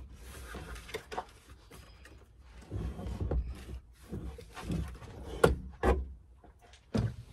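A removed van rear seat being shifted and lifted out, its metal frame and floor rails clunking and scraping against the van floor. Two sharp knocks come a little past halfway, and another comes near the end.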